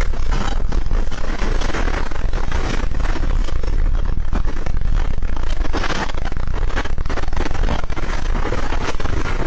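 Earthquake shaking picked up by a CCTV camera's microphone: a loud, continuous low rumble with dense rattling and clattering.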